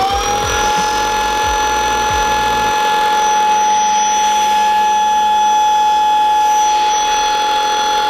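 INSE S6 cordless stick vacuum running on carpet with a steady high whine. The owner thinks it sounds wrong and suspects hair wound around the carpet brush roller could be the cause.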